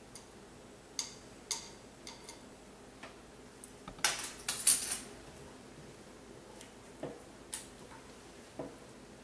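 Kitchen utensils clinking and scraping against a skillet as a thick tomato mixture is stirred: a few separate clinks, then a louder clatter of scraping about four seconds in, then a few more clinks.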